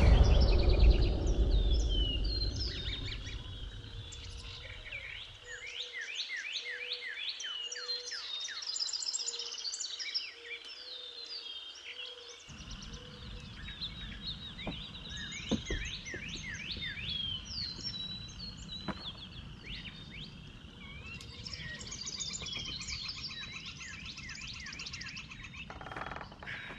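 Several songbirds singing, with quick repeated chirps, rising and falling sweeps and trills. A loud low rumble at the start fades away over the first few seconds.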